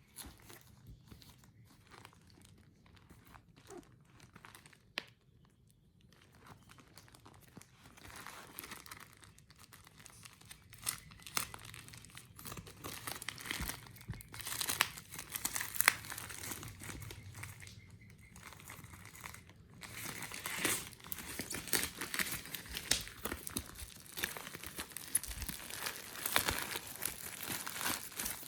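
Keyboard box packaging being unwrapped by hand, crinkling and tearing. A few handling clicks at first, then the crinkling grows busier and louder from about eight seconds in.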